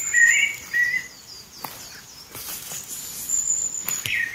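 Small birds chirping in short gliding notes, with a thin steady high-pitched tone at times and a few faint clicks.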